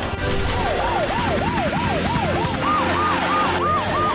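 Cartoon rescue vehicles' sirens: a fast wailing siren starts about half a second in, sweeping up and down a couple of times a second. A second, higher siren joins near three seconds in, overlapping the first.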